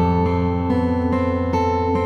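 Background instrumental music led by a guitar, notes picked out one after another and left ringing.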